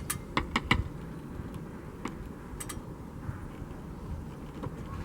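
Wooden glazing beads being eased into a tight window frame: a few sharp clicks and taps in the first second, then a couple more about two seconds in, over a steady low rumble.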